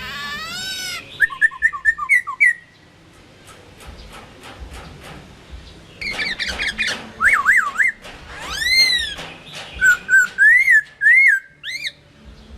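Chinese hwamei (gabichō) singing: loud, clear whistled phrases of slurred notes rising and falling, some repeated several times in quick series. There is a pause of a few seconds near the start, filled with faint clicks, before the song resumes.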